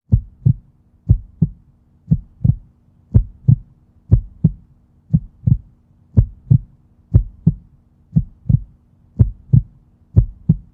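Heartbeat: steady paired lub-dub thumps, about one beat a second.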